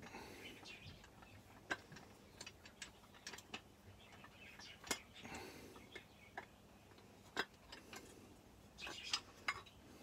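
Faint, irregular light metallic clicks and clinks of hand tools and chainsaw parts being handled, with a little rustling in between.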